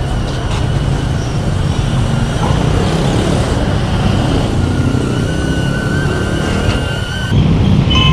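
Steady low rumble of street traffic and vehicle engines, with a thin steady whine joining about halfway through and the rumble growing louder near the end.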